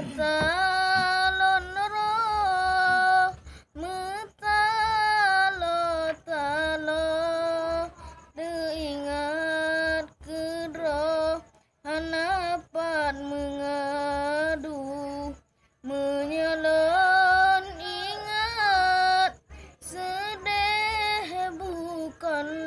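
A boy's high, unaccompanied singing voice, holding long notes with winding melismatic ornaments. It comes in several long phrases, each broken off by a short pause for breath.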